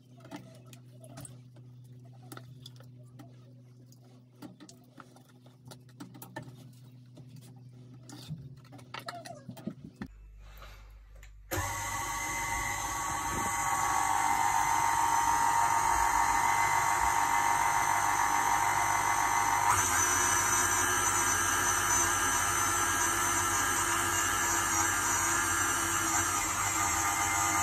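A KitchenAid Artisan stand mixer starts suddenly after about ten quiet seconds and runs steadily, its wire whisk beating a thick cream in a stainless steel bowl. It grows louder a couple of seconds after starting and keeps going.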